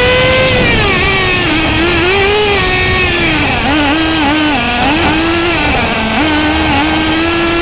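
Small nitro engine of a radio-controlled car, heard from on board while it laps, revs rising and falling over and over as the throttle is eased and reopened through the corners. It runs high at first and drops off about a second in.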